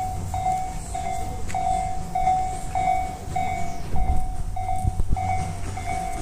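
Railway level-crossing bell ringing, one pitched ding repeating evenly about one and a half times a second, the warning that a train is approaching. A low rumble runs under it, with a few low thumps about four to five seconds in.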